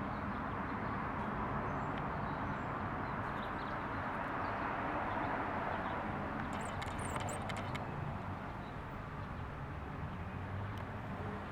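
Steady outdoor road-traffic noise, swelling a little midway as vehicles pass and then easing off.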